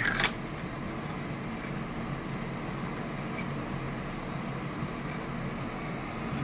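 Small 6-volt DC motor turning a 3D-printed screw-type marble lift, a steady whir. A marble clicks and rattles on the track in the first moment.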